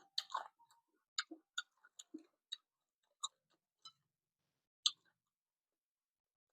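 Faint chewing and lip-smacking while eating a mouthful of papaya salad: about a dozen short, irregular wet clicks and smacks over roughly five seconds.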